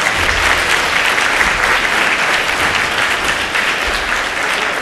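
Audience applauding in a large hall, a dense steady clapping that begins to ease near the end.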